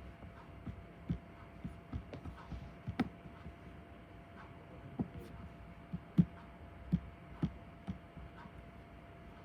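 Soft, irregular taps and knocks from someone working at a desk, about a dozen of them, over a faint steady hum; the sharpest knock comes about six seconds in.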